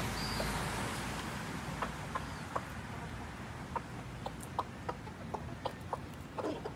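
Chickens pecking cracker crumbs off a wooden deck: a dozen or so short, irregular taps of beaks on the boards, with a louder cluck near the end.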